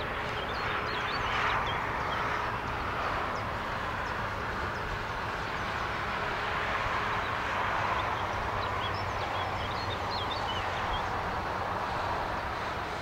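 Distant traffic noise from the valley road and railway below, swelling twice as vehicles pass, with small birds chirping.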